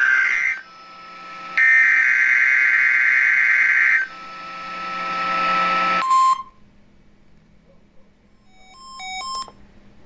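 NOAA Weather Radio SAME data header coming through a Public Alert weather radio's speaker: raspy digital bursts, one ending about half a second in and another from about two to four seconds, followed by hiss and a brief tone. About nine seconds in, the radio gives a short run of electronic beeps as it flags the Required Weekly Test.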